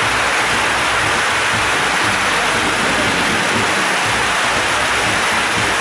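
Heavy rain pouring steadily onto paving and wooden benches: a loud, dense, unbroken hiss.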